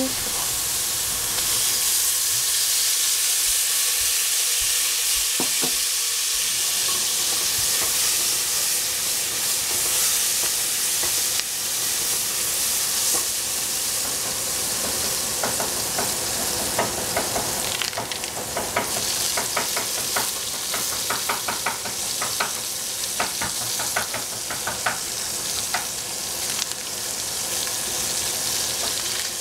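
Green beans and capsicum sizzling as they fry in a pan. About halfway through, a spatula begins stirring them, with quick scraping clicks against the pan for several seconds.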